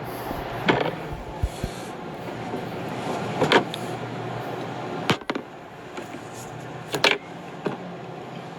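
Steady background noise, slowly growing louder, with about five sharp knocks spread through it.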